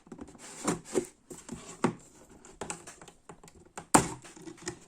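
Cardboard game box being opened by hand: irregular taps, clicks and scrapes of cardboard and packaging, with one sharper click about four seconds in.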